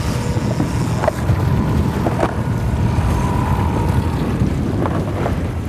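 Wind buffeting the microphone aboard a boat, over a steady low rumble.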